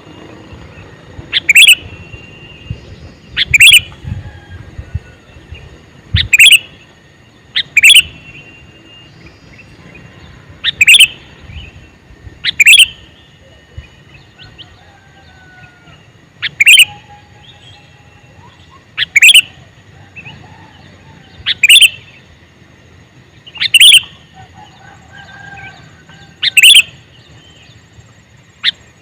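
Male sooty-headed bulbul (kutilang) giving a short, sharp, loud call over and over, about once every two seconds. Fainter notes from other birds sound between the calls.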